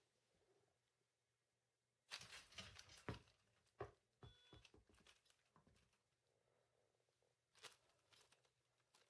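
3D-printed robotic arm swinging through a ball toss: a burst of rattling clicks and knocks from its plastic parts starts about two seconds in and lasts a few seconds, with a brief thin whine in the middle and a few more clicks near the end.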